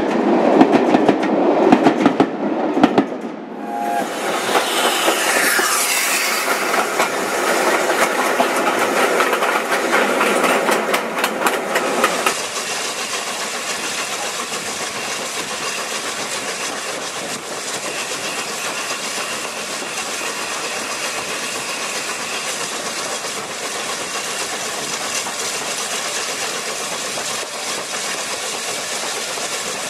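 Steam-hauled train of red coaches behind LMS Jubilee class 5690 Leander rolling past close by, wheels clicking over the rail joints. About twelve seconds in the sound cuts abruptly to a steadier, even noise.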